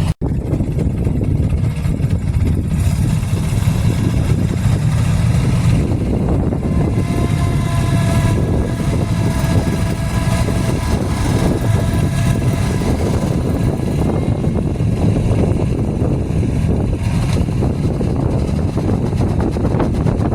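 Farm vehicle engines running steadily, a dense low rumble, as a four-wheeler works to pull a stuck skid steer free. The audio drops out for an instant right at the start.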